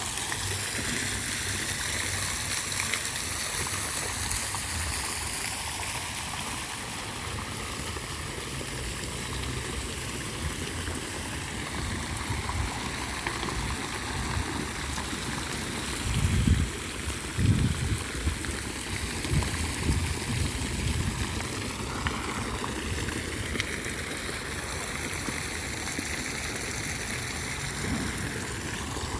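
Flowing water rushing steadily, like a stream. Several short low bumps come about halfway through.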